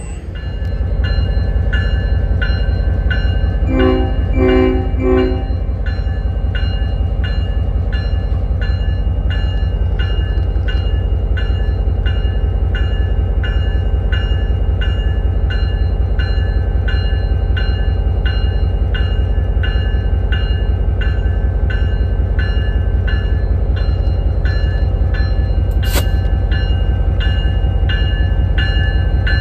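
EMD GP38 diesel locomotive's 16-cylinder two-stroke engine running with a steady heavy rumble, its bell ringing about twice a second throughout. A few quick horn toots sound about four seconds in.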